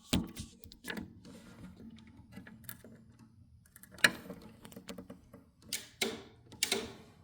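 Irregular clicks and light knocks with handling rustle as meter probes and hands work around the battery's terminals. The sharpest click comes about four seconds in, with a few more near the end.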